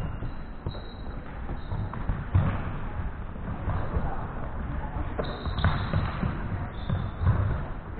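Irregular low thuds on a sports hall floor during a korfball game: the ball bouncing and players' feet landing, with the hall's echo.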